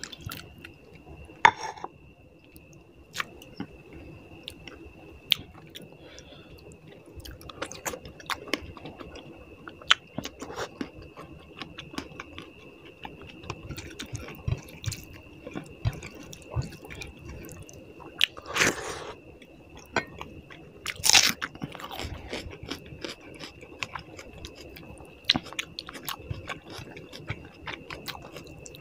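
Close-up eating sounds: a person chewing and smacking through mouthfuls of puti fish curry and rice, with frequent small clicks and occasional crunches. Two louder, longer mouth sounds come about two-thirds of the way through.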